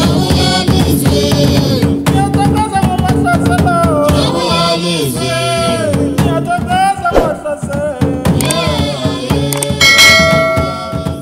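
Singing over steady drumming: the song and drums of a Tsonga traditional dance. Near the end a few ringing, bell-like tones sound, and the music begins to fade.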